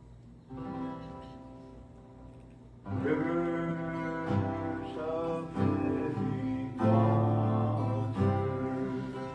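Soft worship music: sustained guitar chords, quiet at first and swelling louder about three seconds in, with a melody line gliding over them.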